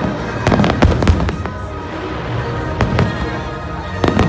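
Aerial fireworks bursting in a rapid, irregular string of bangs, thickest in the first second and a half and again near the end, with music playing steadily underneath.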